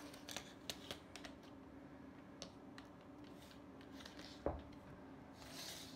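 A phone and its plastic stand being handled on a wooden floor: scattered small clicks and taps, one sharper knock about four and a half seconds in, and a short rustle near the end.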